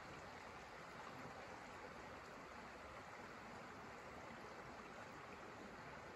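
Faint, steady rushing noise of outdoor ambience, with no distinct events.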